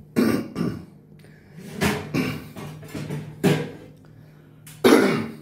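Kitchen clatter as a takeaway meal is unpacked: about six sharp knocks and bumps over a few seconds, with a steady low hum underneath.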